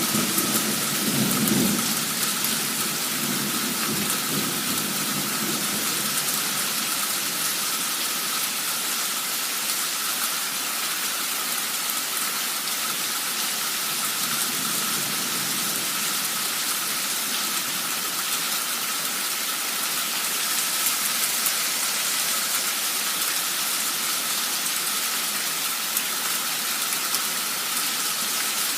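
Heavy downpour of rain, a steady dense hiss, with a low rumble of thunder dying away in the first couple of seconds.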